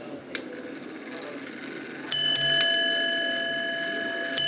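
Ship's bell clock, a converted American 8-day time and strike movement, striking its bell: a pair of quick hammer strokes about two seconds in, ringing and slowly fading, then another pair near the end. These are the paired strokes of ship's bell time, the start of five bells.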